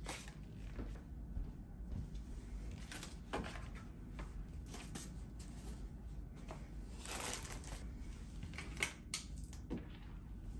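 Household clutter being picked up off a wooden floor and put away: scattered knocks and clicks of objects being handled, with a longer rustle about seven seconds in.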